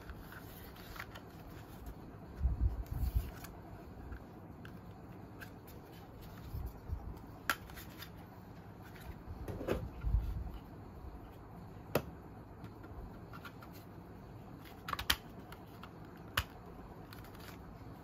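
A plastic manual toy BB gun being handled: dull knocks and rubbing of its plastic body, and about four sharp, separate clicks.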